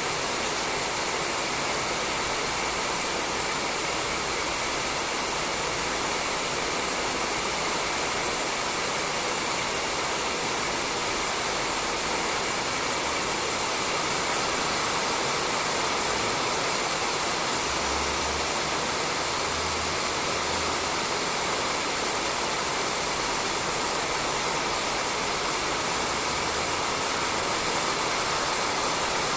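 Rain falling steadily on a roof, an even hiss that holds at the same level throughout.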